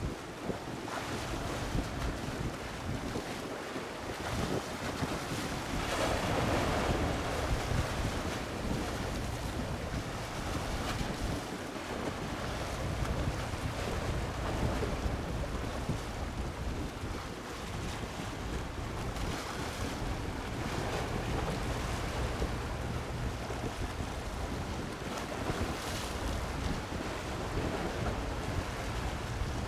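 Sea waves washing in steadily, with wind rumbling on the microphone. A louder surge of surf comes about six to eight seconds in.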